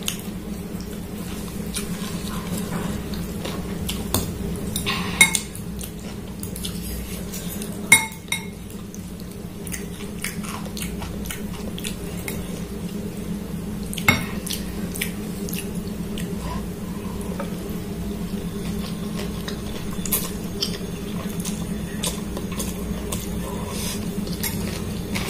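Metal spoon and fork clinking and scraping against a glass bowl while noodles are stirred and scooped, with a few sharper clinks standing out, over a steady low hum.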